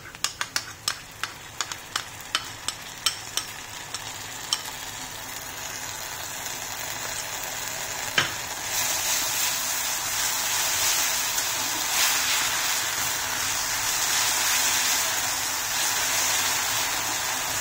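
A steel spatula clicks and scrapes against a wok in quick strokes for the first few seconds. Then a sizzle builds as the sauce mixed into the onions fries in hot oil, growing louder from about halfway on.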